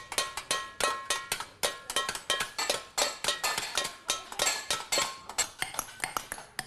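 Small hammer striking a chasing punch on a silver bowl: quick, slightly irregular metallic taps, about four to five a second, each with a brief ring.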